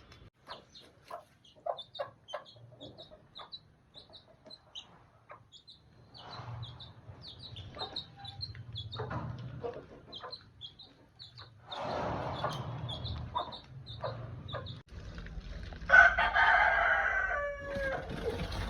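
Chickens clucking with a steady run of high chick peeps, and a rooster crowing loudly about sixteen seconds in, its crow falling in pitch at the end.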